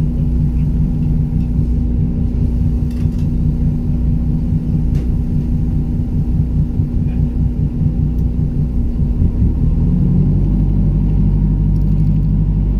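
Boat engine running steadily, a loud low rumble with a hum; its note shifts slightly about ten seconds in.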